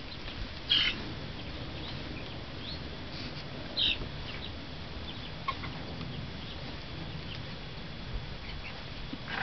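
Chickens calling in a hen run: a few short, high-pitched calls, the two loudest about a second in and just before four seconds, with fainter chirps in between over a low, steady background noise.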